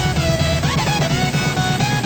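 Background music: a sliding melodic lead over a fast, steady beat.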